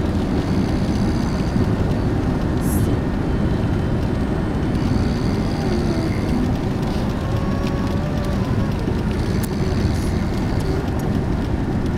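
Steady road and engine rumble inside a moving car's cabin, with a faint singing voice wavering up and down in pitch in the second half.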